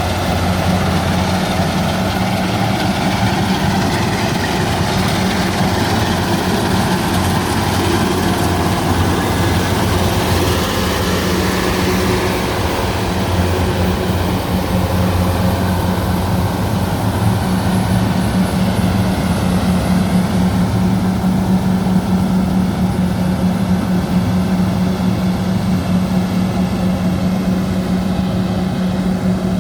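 Engine of a rice combine harvester running steadily with a low, even hum.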